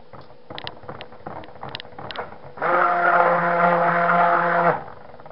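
A few light clicks, then a hand-held stick blender runs in a bowl of cold-process soap batter in one burst of about two seconds, a steady motor hum that starts and cuts off abruptly.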